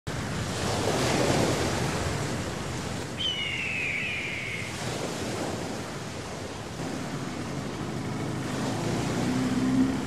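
Sea surf: waves washing in a steady rush that swells and ebbs, with a single high falling call about three seconds in and a low hum coming up near the end.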